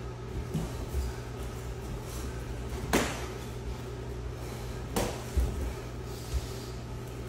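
Sparring strikes landing: two sharp smacks about two seconds apart, with soft thuds of footwork on the mats and a steady ventilation hum underneath.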